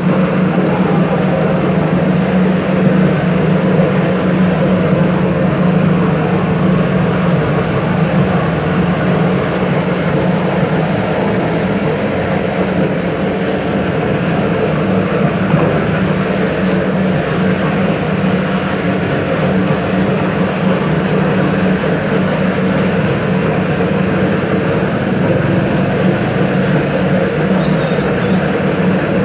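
Steady noise of the gas burner heating the pukis mould, with a low hum that eases slightly after the first few seconds.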